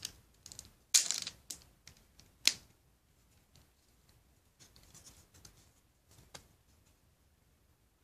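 LEGO plastic pieces being handled and pressed together: a short clatter about a second in, a sharp snap shortly after, then softer rustling and a lighter click.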